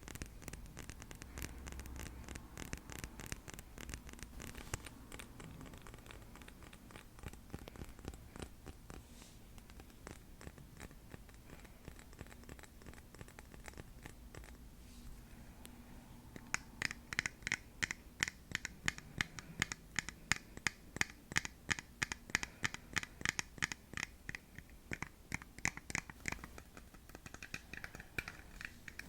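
Fingers tapping and scratching on a hard object for ASMR. For about the first half it is a dense run of small scratchy clicks; from a little past halfway it turns to quick rhythmic taps, each with a short ringing tone.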